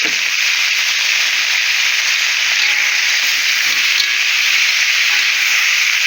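Sausages and vegetables frying in oil in a pan: a steady sizzle.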